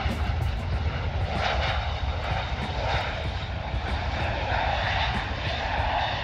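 Bombardier CRJ regional jet's two rear-mounted turbofan engines running at high power in a steady roar as the jet rolls along the runway, with a heavy low rumble beneath.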